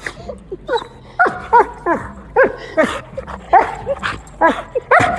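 A puppy yipping and whining in a rapid, irregular string of short, high cries that bend up and down in pitch: excited greeting noises.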